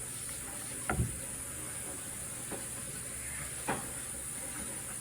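Three light knocks or taps, the first about a second in the loudest, over a steady low hiss.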